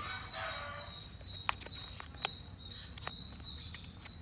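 Paperboard box of an Apple 20W charger being opened by hand: a brief rustle of card flaps, then several sharp small clicks as the tuck flaps and inner tray are pulled free. A steady high-pitched whine sits in the background throughout.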